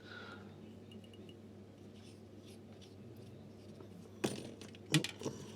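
Quiet room tone, then two short sharp clicks a little under a second apart near the end, as small hairdryer parts are handled.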